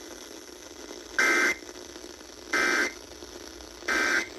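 Emergency Alert System end-of-message code: three short, loud bursts of SAME digital data tones about a second apart, over a steady radio hiss, signalling that the alert has ended.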